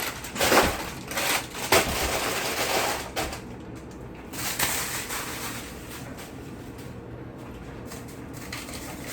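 Plastic grocery packaging rustling and crinkling as groceries are handled, with a few knocks of items being set down in the first three seconds, then quieter handling.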